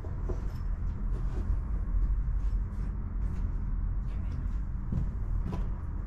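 Footsteps scuffing and crunching on a stony, debris-strewn rock floor, irregular light knocks over a steady low rumble on the microphone.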